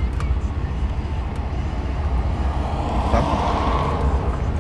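Steady low vehicle rumble heard inside a car's cabin, with a swell of noise about three seconds in that fades again about a second later.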